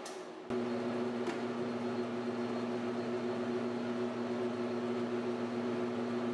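Precision Matthews PM1236T metal lathe running at steady speed with its spindle turning titanium bar stock, giving a steady hum. A short faint tick sounds a little over a second in.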